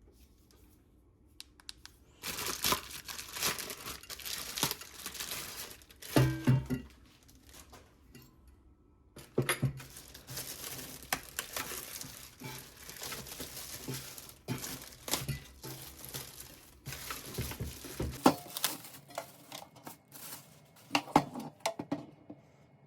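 Packaging being handled and unwrapped: crinkling and rustling with sharp clicks and crackles, starting about two seconds in, pausing briefly, then carrying on. A couple of louder knocks, one about six seconds in, as items are handled.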